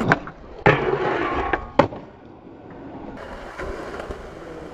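Skateboard on a metal rail: a sharp clack as it hits, a scraping grind along the rail, and a hard clack on landing a little under two seconds in, then the wheels rolling steadily on concrete.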